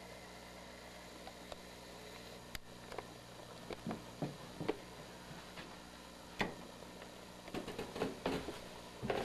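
Footsteps and handling knocks as a handheld camcorder is carried toward and onto a staircase: scattered dull thumps from about two and a half seconds in, coming faster near the end, over a steady low hum.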